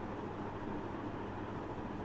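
Steady background hiss with a low, even hum: room tone.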